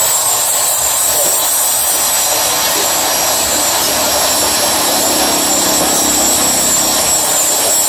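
Handheld electric power tool with a rotary grinding bit running steadily as it grinds inside a motorcycle carburetor's aluminium bore, porting the carburetor for more flow.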